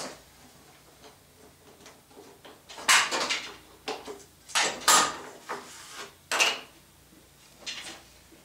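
Hands handling thin plywood and workshop gear on a bench: several short knocks and scraping clatters, the loudest about three seconds in, with quiet between them.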